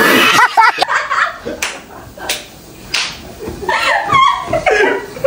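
A loud rushing noise that cuts off about half a second in, then bits of excited voices with four sharp smacks about two-thirds of a second apart.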